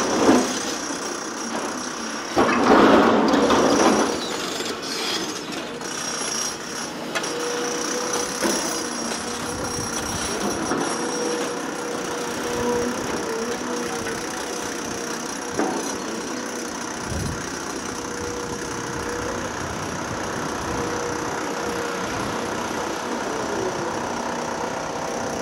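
Caterpillar 336F LN excavator working, its engine and hydraulics running with a steady held tone. Two loud, noisy crashes or scrapes stand out, one just at the start and one lasting about a second and a half from roughly two and a half seconds in.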